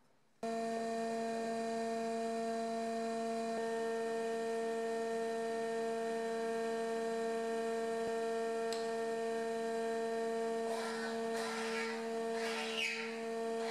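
Woodworking combination machine with a slot-mortising attachment starting up and running with a steady hum. Near the end, rough irregular bursts come on top as the mortising bit cuts into the clamped board.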